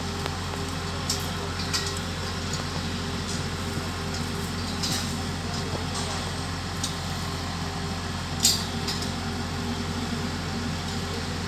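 XCMG QY100K truck crane's diesel engine running steadily with a roof frame hanging from its hook. Scattered light clicks and clanks sound over it, the loudest about eight and a half seconds in.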